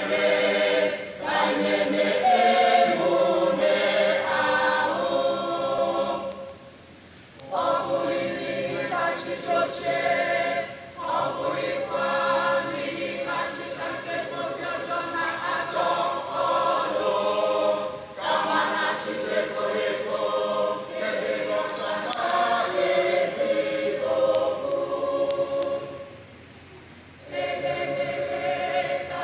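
Church choir singing an Easter anthem a cappella, with two brief pauses between phrases: one about six seconds in and one near the end.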